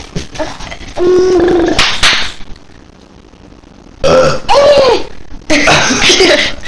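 Loud, drawn-out burps from a person: three long belches starting about one, four and five and a half seconds in.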